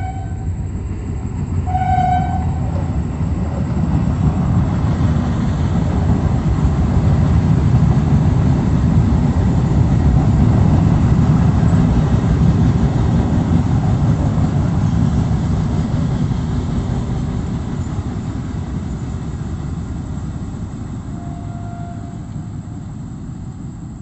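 Bombardier AC electric multiple unit local train sounding its horn, a blast at the start and a short toot about two seconds in. It then runs past with a rumble that builds to its loudest midway and slowly fades as it draws away.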